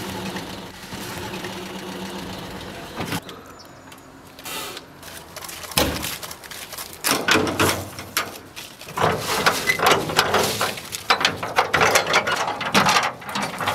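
A pickup truck's engine running with a low steady hum for about three seconds, then a quieter stretch. From about six seconds in comes a run of irregular clicks and scrapes.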